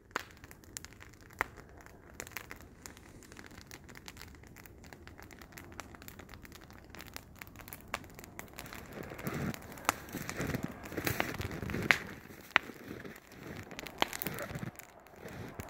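Crunching and crackling of snow with scattered sharp clicks, turning louder and busier about nine seconds in.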